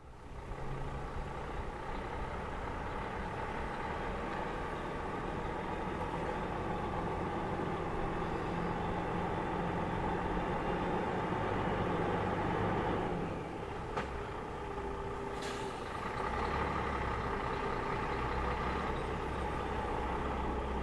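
Diesel engine of an approaching tractor-trailer truck, a steady low drone that dips about two-thirds of the way through and then picks up again as it comes closer. There is a single sharp click near the middle.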